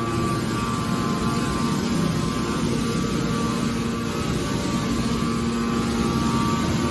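Hydraulic scrap metal baler shear running: its hydraulic power unit gives a steady mechanical hum with a constant whine, and no distinct cutting or impact strokes.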